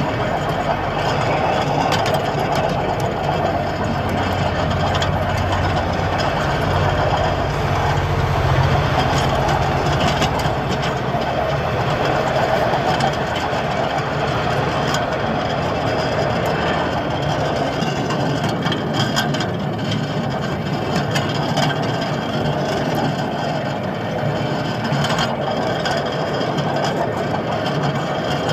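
Miniature railway locomotive's engine running steadily as the train rolls along the small-gauge track, with scattered clicks from the wheels on the rails.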